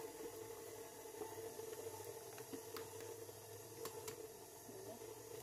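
Stand mixer motor running steadily while its flat beater creams butter in a stainless steel bowl, with a few light clicks.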